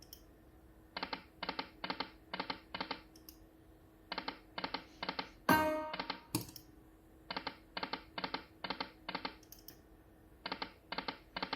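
Slot machine reels stopping one after another, five short clunks per spin at about four a second, over four spins in a row. A short chime sounds about halfway through, over a faint steady hum.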